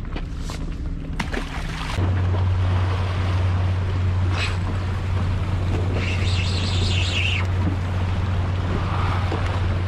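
Wind buffeting the camera microphone over sea water by the rocks. A steady low hum sets in suddenly about two seconds in, and two short high-pitched chirring sounds come near the middle and at the end.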